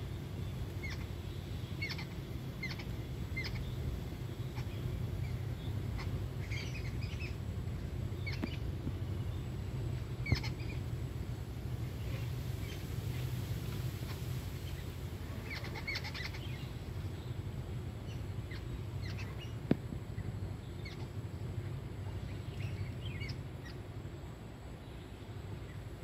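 Jungle babblers calling in short, scattered chirps that come in small clusters, over a steady low hum. Two sharp clicks stand out, about ten seconds in and again about ten seconds later.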